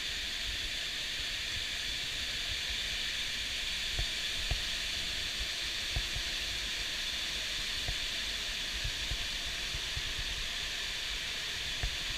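Waterfall: the steady rush of falling water, an even hiss with a low rumble beneath it, and a few faint knocks.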